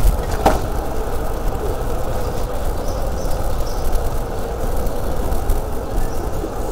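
Wind buffeting the microphone and the rolling rattle of a bicycle on a paved street, steady throughout, with one sharp click about half a second in.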